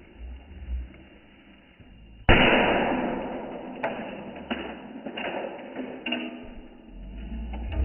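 A hammer strikes a plastic smoke detector once, hard, about two seconds in, followed by a second or so of rattling and clattering, then several lighter knocks and clicks.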